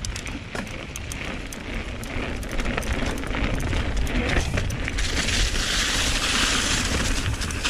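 Mountain bike descending a dirt trail close to the microphone: tyres rumbling and crackling over the ground, with many sharp rattles and clicks from the bike. A broad hiss grows louder about five seconds in.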